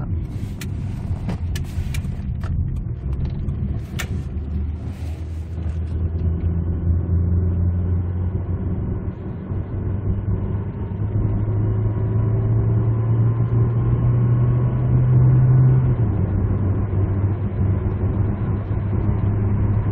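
Cabin sound of an LPG-fuelled SM5 sedan's engine pulling under acceleration up a gentle grade, its drone rising in pitch and dropping suddenly about sixteen seconds in as at a gear change. A few light clicks in the first seconds.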